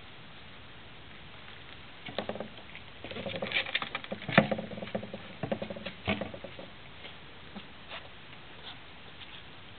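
Dog sniffing and nosing among blankets: irregular snuffling, rustling and small clicks, in a cluster from about two seconds in to a little past six seconds.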